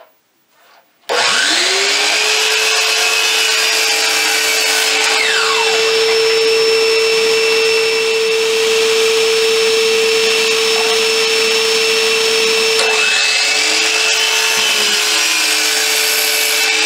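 DeWalt miter saw starting about a second in, its motor rising to speed and then running with a steady high whine while the blade makes 45-degree cuts through a wooden board. About three-quarters of the way through, the sound dips briefly and spins back up.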